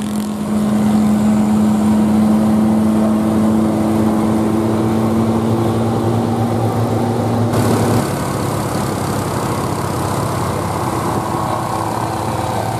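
Heavy diesel truck engines running in passing road traffic, with a steady, droning hum. About eight seconds in the sound changes abruptly to a different steady engine drone as other trucks approach.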